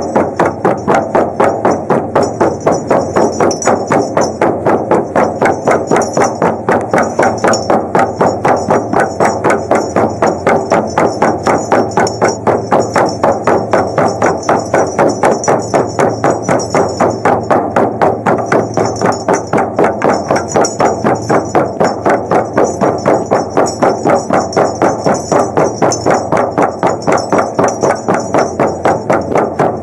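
Shaman frame drums beaten in a steady, even rhythm with no break.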